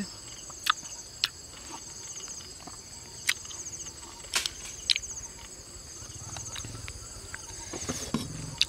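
Insects chirring steadily in a high, pulsing trill, with a few sharp clicks standing out over it in the first five seconds.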